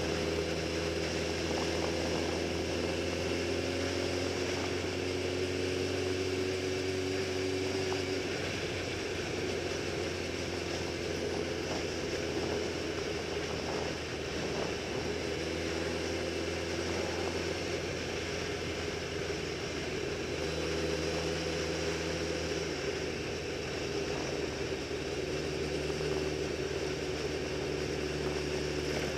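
Sport motorcycle engine running at a steady cruise, with wind rushing over the microphone. The engine note eases off for several seconds about a third of the way in, then picks up again.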